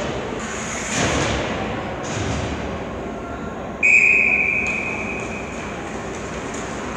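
Referee's whistle: one sharp, single-pitched blast about four seconds in that stops play, fading out with the arena's echo over about a second and a half. A brief noisy clatter comes about a second in, over the steady background noise of the rink.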